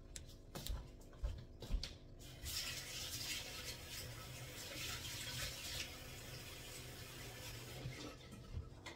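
A few light knocks, then a kitchen tap running for about five seconds, starting a couple of seconds in and easing off near the end.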